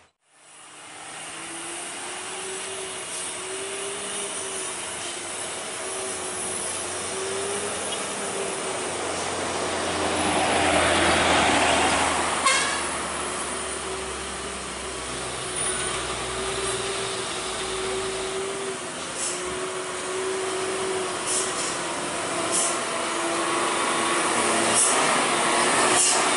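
Heavy diesel trucks driving past, their engines running with a steady, slightly wavering whine. One passes loudest about ten to twelve seconds in, and there is a quick series of clicks just after.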